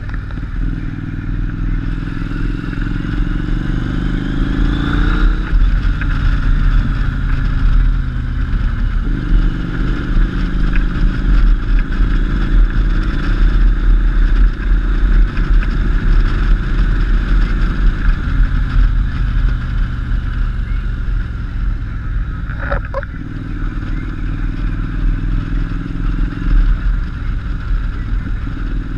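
Cruiser motorcycle engine pulling away, its pitch rising for about five seconds before a gear change drops it, then running steadily at low speed with a deep rumble.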